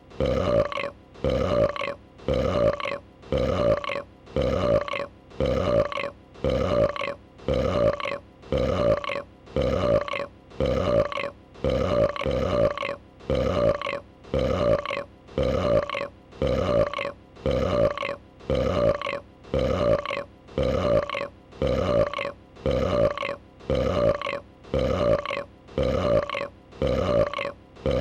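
A female dragon's burp sound effect played in a loop: the same burp repeats about once a second, each one alike.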